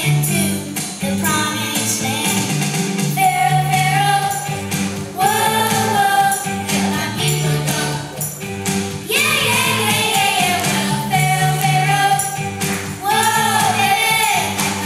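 A song: singing voices over a steady bass line, with jingling percussion.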